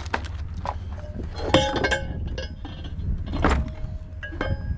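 Metal parts being handled on a workbench: two louder clanks with a brief metallic ring, about a second and a half in and again a couple of seconds later, and a lighter knock near the end, as the jet drive's steering nozzle housing is picked up and set to take new nylon bushings. A steady low rumble runs underneath.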